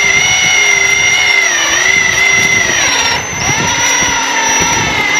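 Kubota Grand L3560 diesel tractor running under load with a steady high whine as it pulls scrap wire through a stripper; the pitch sags briefly about two seconds in and again about three seconds in.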